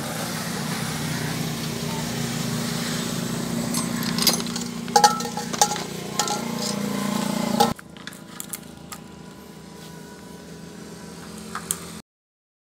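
Metal hand tools clinking as they are rummaged in a tool bucket, with a steady low hum behind. Partway through, the hum stops abruptly and fainter clinks follow until the sound cuts out.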